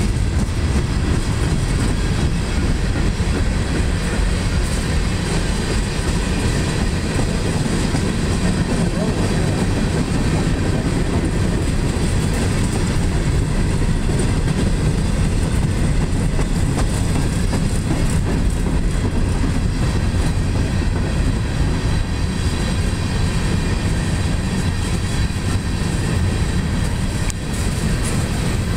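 Freight train's tank cars and covered hopper cars rolling past close by: a steady rumble and clatter of steel wheels on rail.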